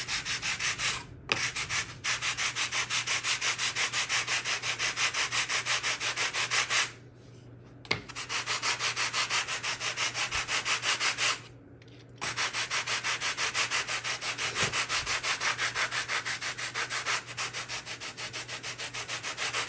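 Balsa wood being hand-sanded with coarse sandpaper, about 80 grit, on a long sanding bar: quick back-and-forth rasping strokes, several a second, stopping briefly twice. The glued-on balsa patch is being ground down flush with the sheet.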